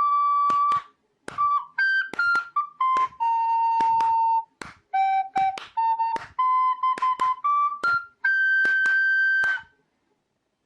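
Background music: a simple, jaunty melody played by a single flute-like instrument, with short notes and a few held ones, stopping abruptly near the end.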